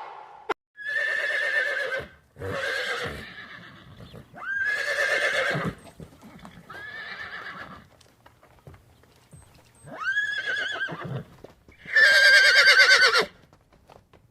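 Horse neighing, six quavering whinnies of about a second each, with a longer pause before the last two.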